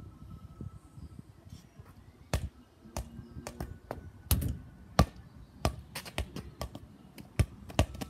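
A football bouncing on concrete paving slabs: about ten sharp, irregularly spaced knocks.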